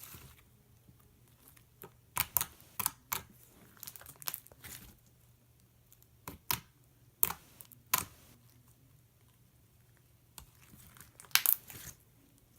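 Slime being stretched and poked by hand, giving off irregular sharp clicks and pops in short clusters, with a quieter stretch partway through.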